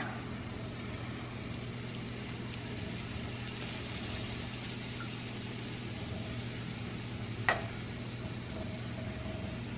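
Yorkshire pudding batter sizzling as it is poured into hot oil in the cups of a muffin tin: a steady, quiet frying hiss over a low hum, with one brief click about seven and a half seconds in.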